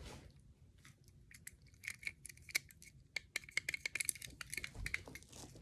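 Fidget cube being worked, its buttons and switch giving a quick, irregular run of small sharp plastic clicks starting about two seconds in.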